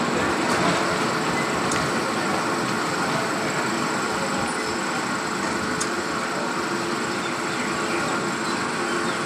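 Children's amusement ride running: a steady mechanical rattling noise with a few faint clicks.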